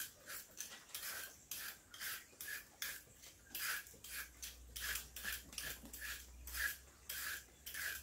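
Potato peeler scraping the skin off a taro corm in short, regular strokes, about two a second.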